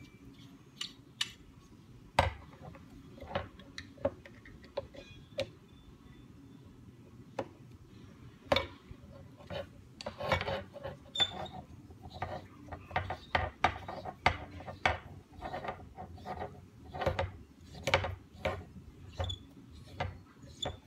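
Irregular clicks, taps and scraping of small metal parts and tools being handled while accessories are screwed back onto a recurve bow riser. The clicks come more often from about eight seconds in.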